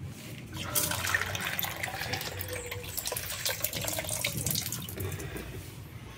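Water running from a wall tap with a hose attached, starting a little under a second in and easing off near the end.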